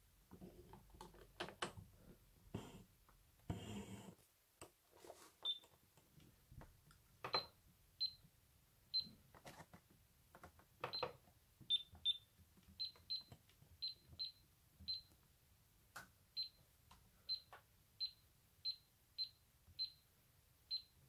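Miele W1 washing machine control panel giving short high beeps, one about every second, as settings are selected, with several clicks and knocks of handling in the first seconds.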